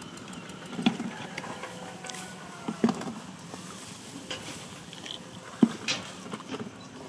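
A few scattered soft knocks and rustles over a low background, the sharpest about three seconds in and again near six seconds.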